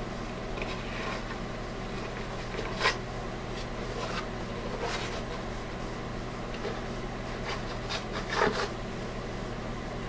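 Steady low electrical hum with two brief faint handling clicks, about three seconds in and near the end.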